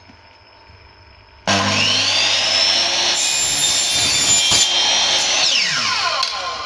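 Hitachi 216 mm miter saw switched on about a second and a half in, its motor whine rising as it spins up, then cutting through aluminium stock. Near the end the trigger is released and the pitch falls quickly as the electric brake stops the blade.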